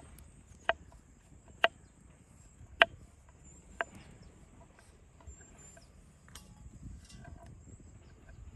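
Five sharp knocks, about a second apart, over a faint steady high chirring of insects.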